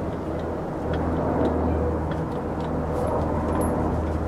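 A vehicle engine running steadily with a low hum, a little louder from about a second in, with faint light clicks as a hydraulic bottle jack's handle is worked.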